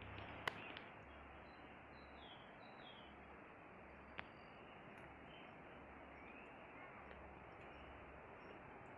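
Faint forest ambience: a steady, even hiss with a few short bird chirps in the first few seconds. Two sharp clicks come at about half a second and about four seconds in.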